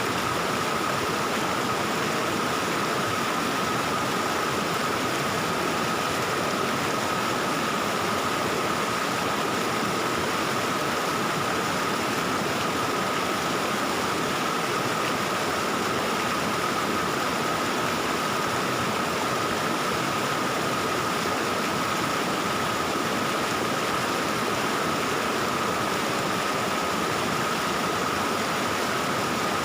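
Mountain stream water flowing and babbling over rocks, a steady rushing with no breaks, with a faint steady high tone running under it.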